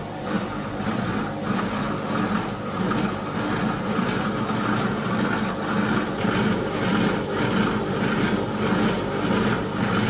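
Twin-tub washing machine with a melted plastic casing, running: a steady motor hum with an uneven churning noise over it.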